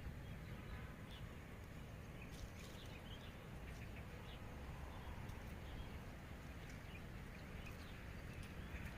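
Faint outdoor ambience: a steady low rumble with scattered small high chirps and ticks from birds and insects.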